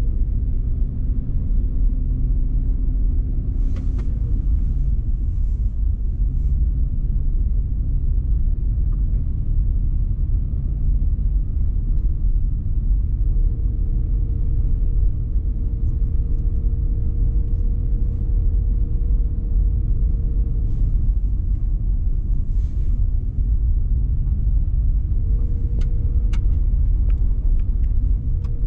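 Car interior driving noise: a steady low road-and-engine rumble heard from inside the cabin, with a faint hum that comes and goes and a few light clicks.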